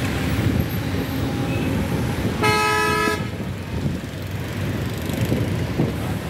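A vehicle horn sounds once for just under a second, a bright pitched blast, over a steady low rumble of idling bus engines and traffic.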